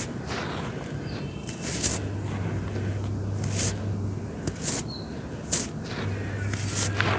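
Dry red dirt being crumbled, making sharp crunches and crackles irregularly about once a second, over a low hum that comes and goes.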